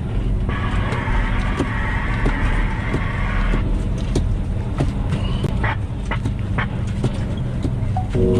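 Loaded log truck running, a steady low engine and road rumble. A hiss joins in about half a second in and lasts about three seconds, with scattered light clicks and knocks.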